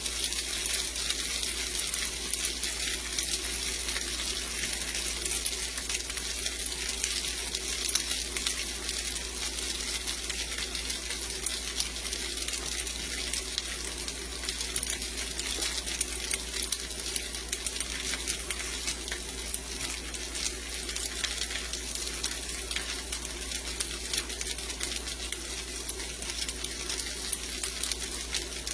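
Sliced potatoes frying in oil in a pan, a steady sizzle dotted with small pops, over a low steady hum.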